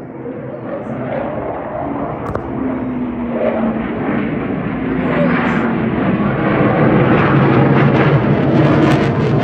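Jet noise from two RAF Eurofighter Typhoons' EJ200 turbofan engines as the pair flies the display, growing steadily louder throughout.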